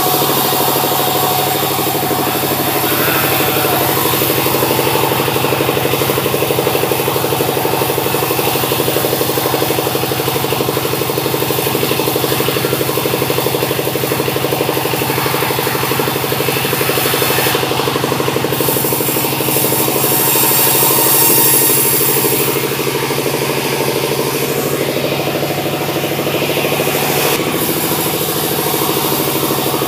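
Sawmill machinery running: a steady engine drone with a changing hiss above it, louder for a few seconds around the middle of the stretch.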